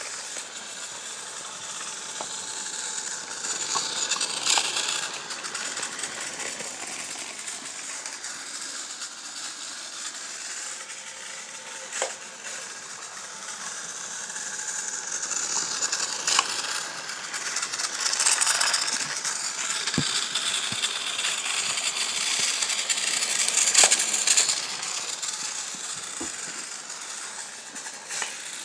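Battery-powered TrackMaster Thomas toy engine running along plastic track, its small geared motor whirring with scattered clicks and rattles, louder in stretches.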